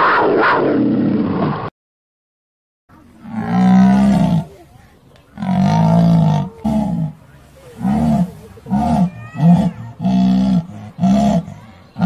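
A black panther's roaring growl cuts off under two seconds in. After a second of silence, a jaguar gives a series of about ten hoarse grunts, each rising and falling in pitch, coming shorter and quicker as they go: the jaguar's sawing call.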